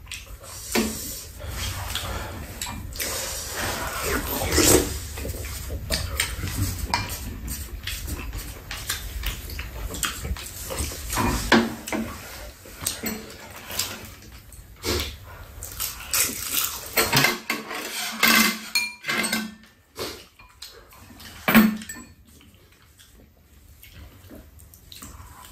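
Spoons and chopsticks clinking and scraping against ceramic bowls during a meal, in scattered short clicks, with chewing and slurping of soup.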